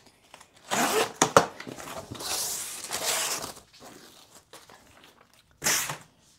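Shipping box and its packaging being opened and handled: irregular bursts of tearing and crinkling, with two sharp knocks just over a second in and another rustling burst near the end.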